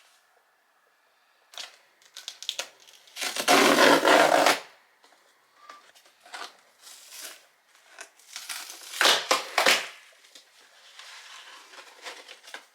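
Handling noises: a string of clicks and rustles, with two louder, longer rustles, one about three seconds in and one about nine seconds in.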